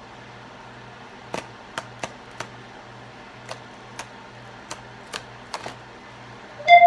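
Sharp clicks and taps from a box being opened and handled, about ten scattered over several seconds. Near the end, a short high tone slides upward.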